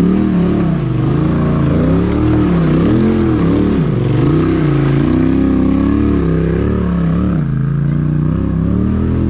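Polaris RZR Turbo side-by-side engine revving up and down over and over, its pitch rising and falling about once a second as the throttle is worked on and off, then settling lower and steadier near the end.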